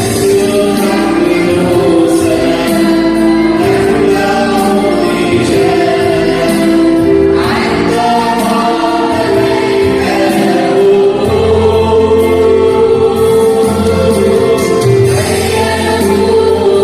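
Arabic Christian hymn sung by a choir over an instrumental backing, with a steady low bass coming in about eleven seconds in.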